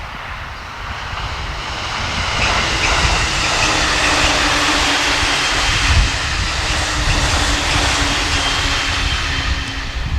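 Electric train passing at speed: a rush of wheels and air that builds over the first few seconds, then holds loud with a steady hum.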